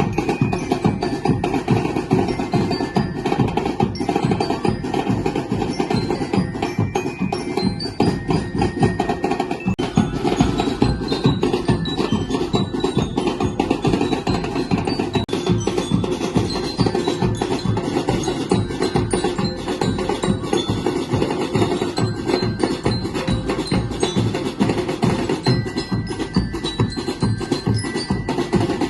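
Music with fast, dense percussion and short high ringing tones over it, continuing without a break.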